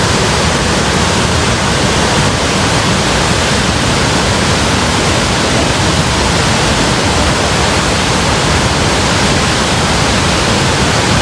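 Steady, loud rush of falling water from Nugget Falls, a large waterfall, heard close up.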